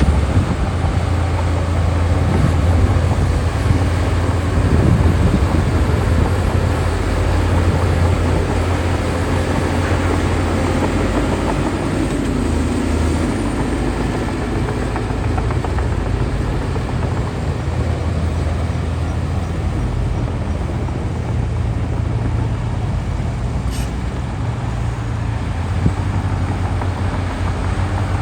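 Heavy diesel earthmoving machinery working, a Shantui DH17C2 bulldozer among it: a steady, deep engine drone, a little louder for the first ten seconds or so.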